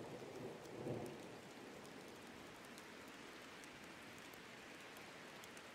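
Faint, steady rain falling, with scattered tiny drop ticks. A low rumble of thunder dies away about a second in.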